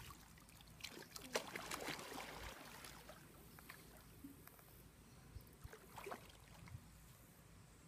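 Faint splashing and sloshing of pool water as a swimmer wades in and goes under, mostly in the first two or three seconds. After that there is only faint water noise with a few small splashes.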